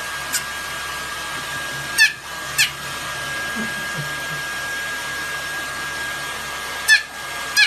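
Hair dryer blowing steadily with a constant high whine. A few short, high-pitched yips from a small puppy cut in, loudest about two seconds in and near the end.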